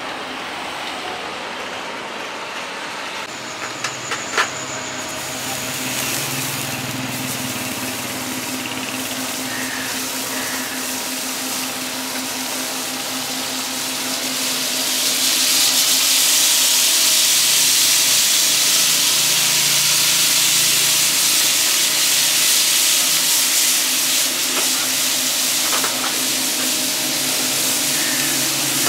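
Food sizzling as it fries in hot oil, a steady hiss that swells louder about halfway through, over a low steady hum.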